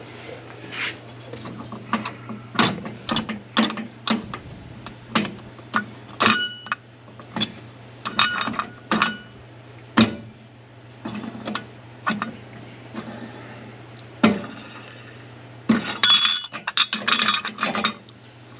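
Irregular metallic clinks and knocks from working the spare tire and its hold-down hardware out of a 1965 Ford Mustang's trunk, with a quick flurry of rattling near the end.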